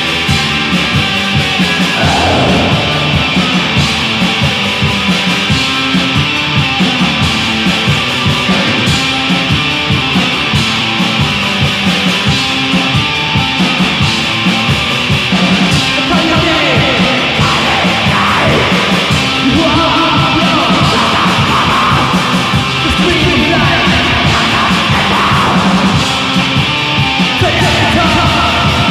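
Black metal music: dense distorted guitars over rapid, continuous drumming, with harsh vocals coming in during the second half.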